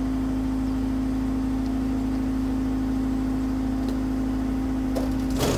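Tay-mar screed mixer running steadily with a constant mechanical hum. About five seconds in there is a brief clatter, and just before the end a louder, rougher noise comes in on top of the hum.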